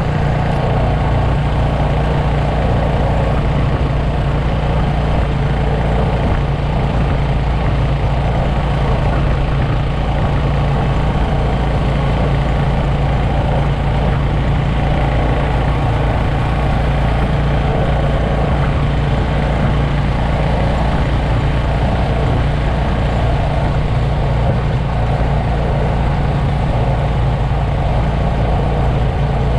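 Motorcycle engine running at a steady cruising speed, with wind rushing over the microphone of a bike in motion.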